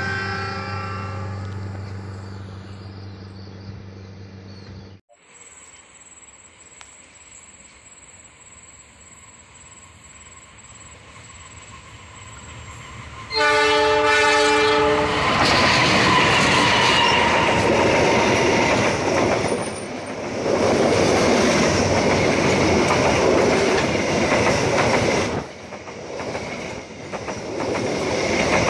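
A train's horn sounds at the start and its rumble fades as it moves away, then stops abruptly. Later a diesel locomotive gives a loud horn blast of about two seconds and the train passes close, the engine running and the wheels of the passenger cars rolling loudly over the rails.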